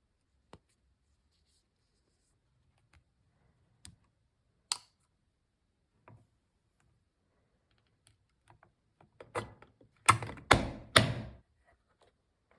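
Mechanical keyboard keystrokes from a Zoom65 v3 with lubed KTT Hyacinth linear switches on a POM plate and PBT Cherry-profile keycaps: a few scattered single key presses, then a quick run of louder strokes about ten seconds in.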